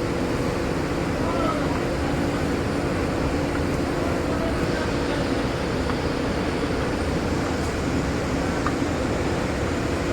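Steady hum of running industrial machinery, an even noise with several steady tones held throughout.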